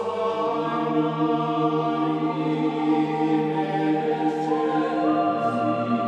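Slow ambient background music of long, held chant-like tones, the notes changing about two and five seconds in.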